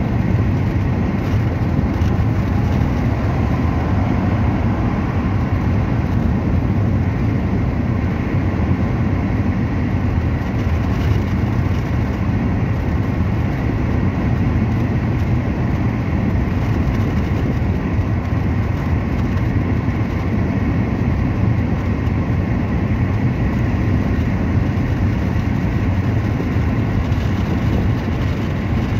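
Steady road and engine noise inside a moving car's cabin, an even low rumble with no change in pace.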